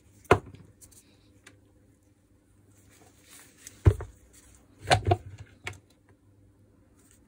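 Hard parts of a Makita HR2450 rotary hammer knocking and clicking as it is taken apart by hand. There are a few separate sharp knocks: one just after the start, one about four seconds in, and a quick cluster around five seconds.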